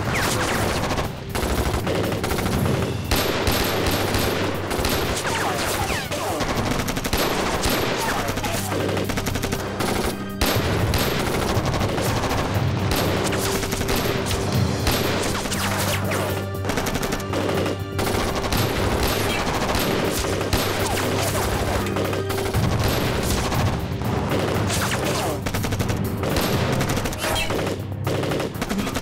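Sustained gunfire, many shots in quick succession throughout, over background film music with steady held low notes.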